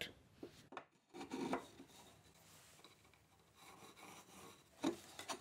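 A few short, faint scrapes and rubs of a pencil scribing a line along a white oak brace and of the wooden piece being handled against the bench.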